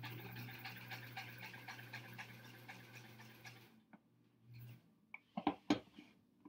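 Sewing machine running, stitching a seam with a steady motor hum and rapid needle ticks. It stops a little past halfway, runs again briefly, then a few sharp clicks follow near the end.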